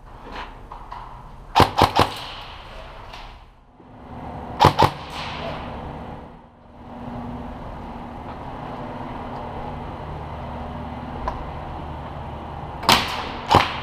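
Airsoft gun shots: three quick sharp cracks about a second and a half in, two more a few seconds later, and another short string near the end, over a steady background hum.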